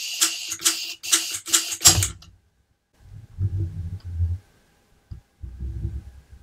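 Blue torch trigger clicked about five times in quick succession in the first two seconds, its igniter failing to light the gas. Two spells of low rumbling follow.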